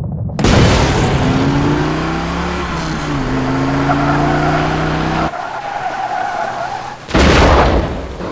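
Designed film sound effects. A sudden loud hit comes about half a second in, followed by a low droning tone that slides down in pitch around three seconds and cuts off sharply a little past five seconds. A higher wavering tone then runs until another loud hit near the end.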